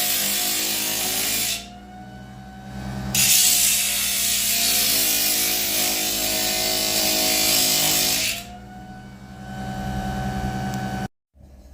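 Cordless die grinder (Milwaukee M12) running with a steady whine while its burr cuts into black walnut, with a loud hiss of cutting. The cutting lets up about a second and a half in and resumes a moment later, then eases off near the end while the motor keeps spinning. The sound cuts off abruptly just before the end.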